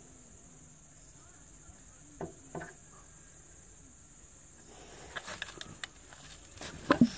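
Crickets trilling steadily at a high pitch. Two light clicks come about two seconds in, and from about five seconds a cluster of sharp clicks and knocks builds up, loudest near the end.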